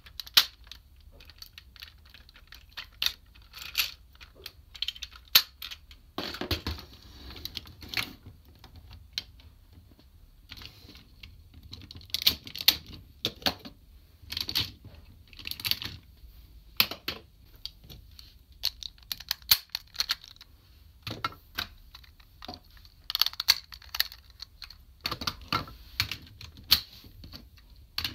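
Hard plastic toy robot parts clicking and rattling as a DX Kerberios combining robot is handled and its pieces are pulled off and snapped into place. The clicks come irregularly, with a longer scraping rub of plastic about six seconds in.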